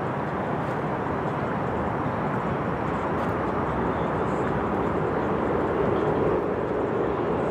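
Steady distant engine rumble that swells gradually over the first six seconds and then holds.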